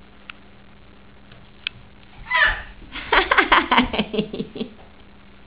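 A toddler giggling: a short burst about two seconds in, then a run of quick, rapid laughs lasting about a second and a half.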